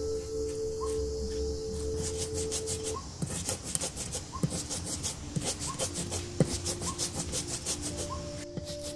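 Round hand-held grinding stone rubbed back and forth on a flat stone slab, crushing whole spice seeds: a rhythmic gritty scraping, with sharper strokes in the second half.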